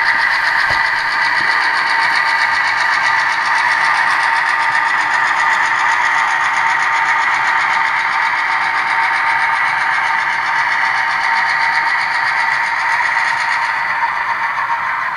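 HO-scale model diesel locomotive's onboard sound playing a steady diesel engine run as it moves a string of freight cars, easing slightly near the end.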